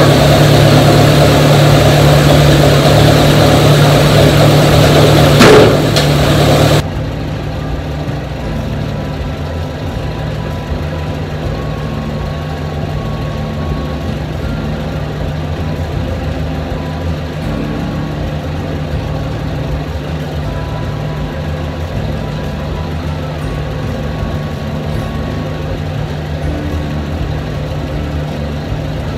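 An engine idling steadily, loud for the first several seconds, then quieter after an abrupt cut; a single sharp knock about five and a half seconds in.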